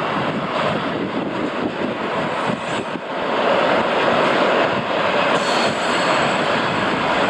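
Electric-hauled container freight train passing close by: a steady rush and rumble of wheels on the rails that gets louder about three seconds in as the container wagons roll past.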